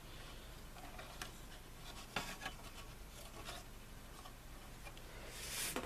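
Faint clicks and rubbing of plastic model-kit parts being handled, with a few light ticks and a short rustle just before the end.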